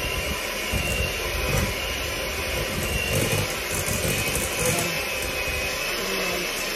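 White electric hand mixer running steadily at its lowest setting, a thin motor whine over the beaters churning cream cheese frosting in a glass bowl.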